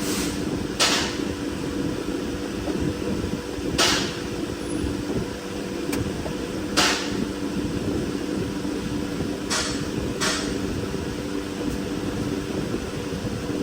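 A steady mechanical hum like a fan, with a handful of sharp knocks scattered a few seconds apart.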